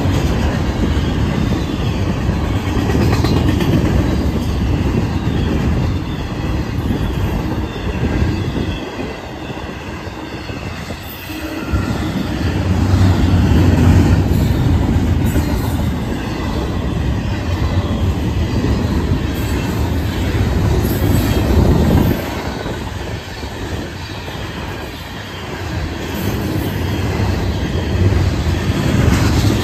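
Florida East Coast freight cars rolling past: a steady, loud rumble and clatter of steel wheels on the rails, easing briefly about nine and twenty-three seconds in.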